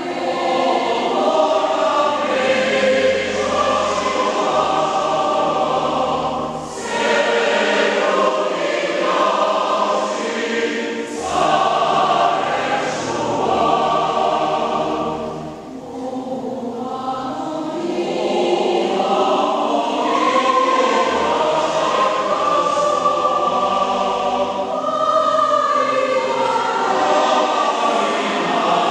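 A choir singing in long phrases, with brief breaks between them.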